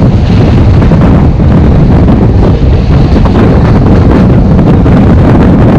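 Loud, steady wind buffeting a microphone held out of the window of a moving passenger train, over the rumble of the coaches rolling along the track.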